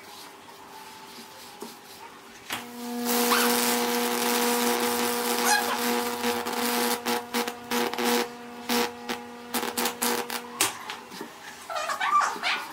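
High-voltage electricity arcing and crackling across a wet wooden board, burning into the wood, over a steady electrical hum. It switches on about two and a half seconds in and cuts off suddenly about two seconds before the end, followed by scattered clicks and a brush rubbing on the board.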